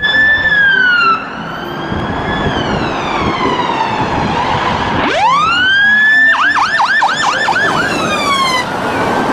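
Fire engine siren on an emergency run: a slow wail rising and falling, a sharp rise about five seconds in, then a fast yelp of about four sweeps a second before it goes back to a slow wail.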